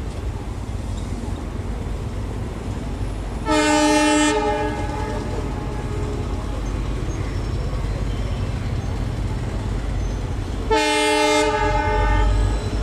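Indian Railways WDG4 diesel locomotives, with EMD two-stroke V16 engines, rumbling steadily, with two short horn blasts: one about three and a half seconds in and another near the end.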